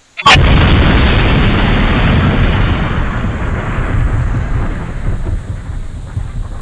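Close thunderclap: a sudden sharp crack about a quarter of a second in, then a loud, deep rumble that slowly fades.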